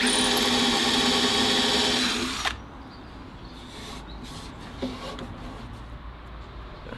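Cordless drill running at a steady speed, drilling into the oak door at the edge of a steel grate, for about two and a half seconds before it stops suddenly. A few light taps follow.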